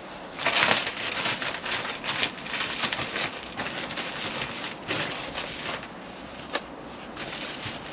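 Plastic bag and insulation material rustling and crinkling as they are handled, in uneven bursts, with one sharp click about six and a half seconds in.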